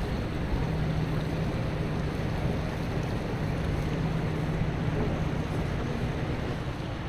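Steam-turbine lake freighter passing close, its machinery giving a low steady hum under wind noise on the microphone and the wash of water.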